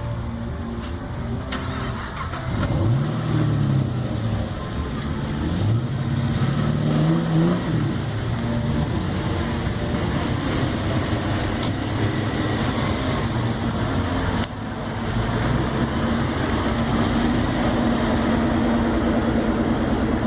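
Classic car engines running as cars roll by, with two revs that rise and fall in the first half, then steadier engine running after a brief break about two-thirds of the way through.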